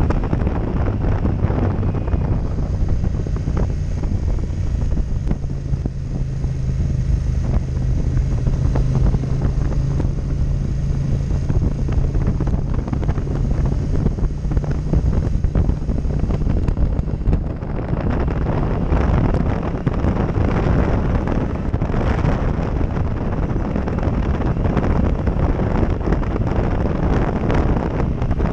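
Heavy wind noise buffeting a helmet-mounted GoPro microphone over a Yamaha MT-07 Tracer's parallel-twin engine running on the road. A steady low engine note holds through the first half, then the wind grows louder and brighter a little past the middle.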